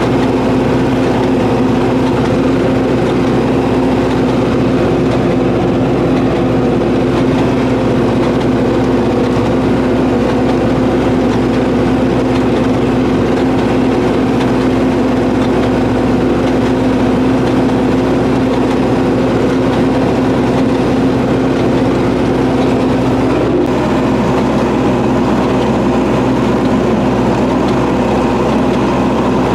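MTZ-952 tractor's diesel engine running steadily under load while pulling a potato planter; its even drone shifts slightly about 23 seconds in.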